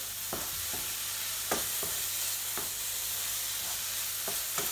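Strips of beef fillet sizzling in oil in a frying pan while a wooden spoon stirs them, with scattered light knocks of the spoon against the pan.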